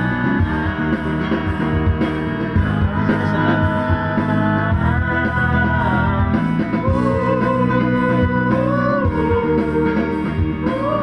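Videoke backing track playing an instrumental passage: band music led by guitar over a steady drum beat, with a sliding melody line coming in about halfway through.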